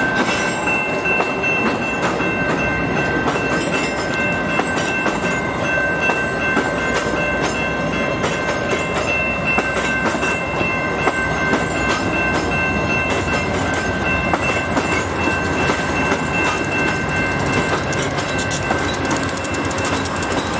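VIA Rail passenger cars rolling past close by as the train pulls into a station. Their wheels clatter over the rail joints in many quick clicks. A steady high-pitched ringing tone runs throughout.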